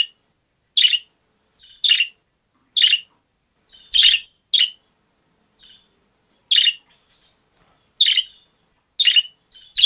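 Budgerigar giving short, sharp, shrill calls over and over, about one a second, with a gap of about two seconds midway. It is the call a budgie makes when it wants something or wants to be let out of its cage, pacing quickly back and forth along its perch.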